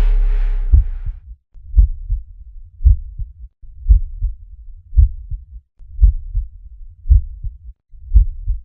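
Heartbeat sound effect: low double thumps (lub-dub), about one a second, eight in all. In the first second the tail of the music before it fades out.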